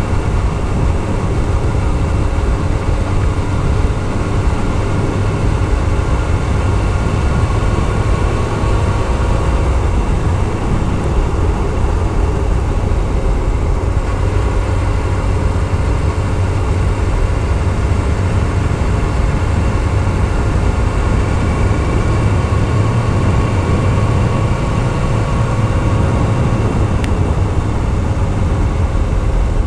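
Yamaha YZF-R6S inline-four engine running steadily at speed while pulling uphill, with wind rushing over the microphone.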